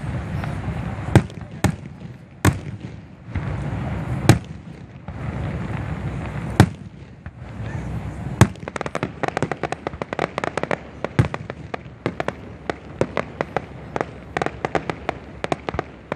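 Fireworks display: a handful of separate loud bangs from bursting aerial shells over the first half, then a dense rapid crackle of many small pops through the rest.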